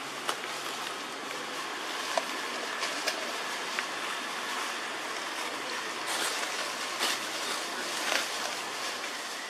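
Steady outdoor forest hiss with scattered short crackles, like dry leaves being stepped on, a handful of times.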